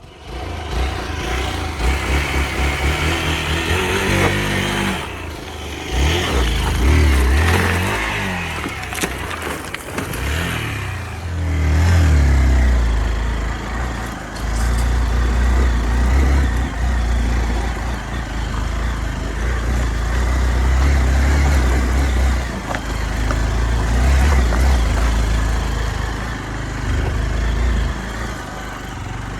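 Hero Xpulse 200 single-cylinder motorcycle engine being ridden, its revs rising and falling several times in the first dozen seconds, then running steadier with a heavy low rumble.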